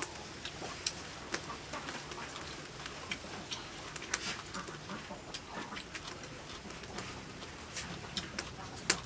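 Irregular light clicks and taps from hand work at a table, with the sharpest right at the start, about four seconds in and near the end, over a faint steady background.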